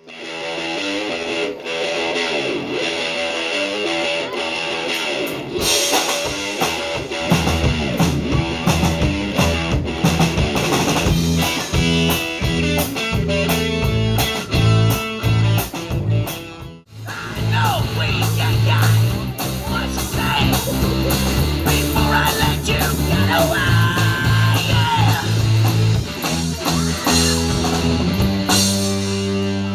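Rock band playing an instrumental stretch with electric guitars, bass and drums. About 17 seconds in the music cuts off sharply and a different rock song with a heavy bass line takes over.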